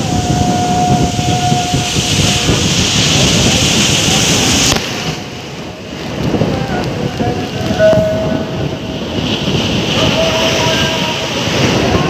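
Rough monsoon surf breaking and churning on a beach, a loud continuous rumble and hiss of waves with wind. The high hiss drops off suddenly about five seconds in.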